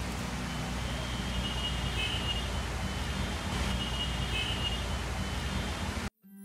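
Steady outdoor background noise: a low traffic rumble with wind on the microphone, and faint high tones twice. It cuts off abruptly near the end.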